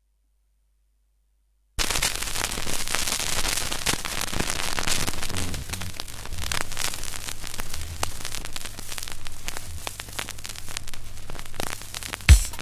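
Stylus dropping into the lead-in groove of a vinyl LP: after about two seconds of silence comes steady surface noise, a crackle and hiss with scattered pops. Near the end the first loud drum hit of the song comes in.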